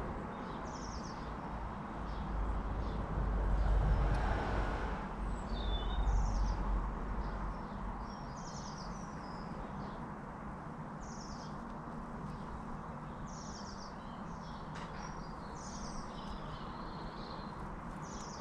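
A small songbird singing short, high, repeated phrases, one every second or two, over a steady low outdoor rumble that swells in the first half.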